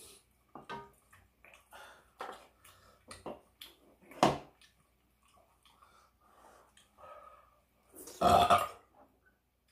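A person burping while eating: a long loud burp near the end and a shorter, sharper one about halfway through, with short quiet eating and mouth noises in between.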